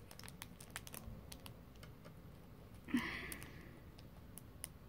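Faint handling of a clear plastic packet: scattered light clicks and ticks of fingers and nails on the packaging, with one short, louder crinkle about three seconds in.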